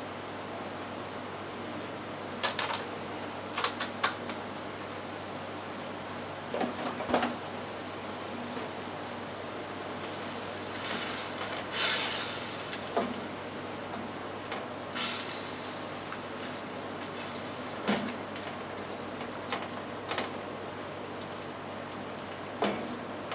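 Chicken thighs and tomatoes sizzling steadily in a pan on the stove, with occasional sharp clinks and scrapes of a utensil against the pan.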